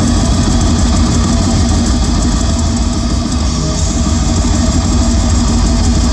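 Death metal band playing live in an arena, heard through a phone's microphone: distorted guitars, bass and drums run together into one loud, dense, unbroken wall of sound.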